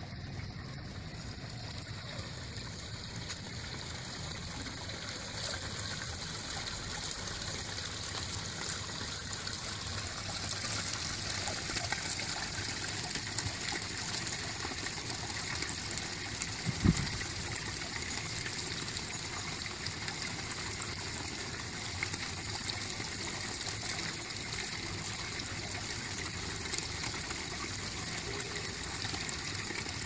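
Water from the bell-shaped umbrella nozzle of a fibre bird-bath fountain splashing steadily back into the basin, growing somewhat louder over the first few seconds. One brief low thump comes a little past halfway.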